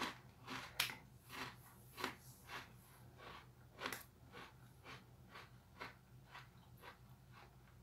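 Alpino chocolate cookie being chewed: a soft crunch about twice a second, the crunches growing fainter as the bite breaks down. The cookie's dough is dry and airy, close to a sandwich biscuit in texture.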